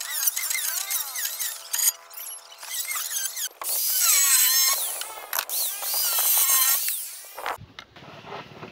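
Corded hand-held power tool, fitted with a cutter bit ground from a chisel, countersinking a bolt hole in a wooden deck beam. The motor runs with a high squeal, bites into the wood about three and a half seconds in, cuts for about four seconds and stops.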